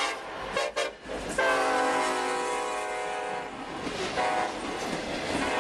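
Union Pacific EMD SD70ACe diesel locomotive's air horn sounding for a grade crossing: a short blast about half a second in, a long blast from about a second and a half to three and a half seconds, and a brief last blast just after four seconds. Between and after the blasts the freight cars roll past with wheel clatter.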